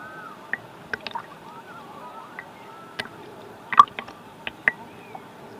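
Shallow seawater sloshing and dripping right at the camera, with small bubbly plinks and scattered sharp clicks over a steady wash; a louder cluster of clicks comes a little under four seconds in.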